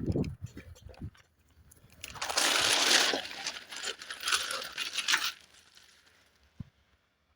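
Freight train noise: low knocking in the first second, then about three seconds of loud hissing mixed with metallic clinking and clanking that fades out.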